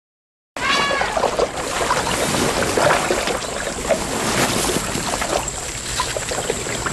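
Water splashing and sloshing with small gurgles and drips, as something moves through water; it starts abruptly about half a second in.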